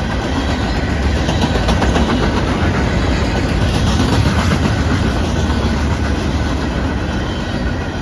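Cars of a mixed freight train rolling steadily past: a continuous loud rumble and rattle of steel wheels on the rails, with faint ticking as the wheels cross rail joints.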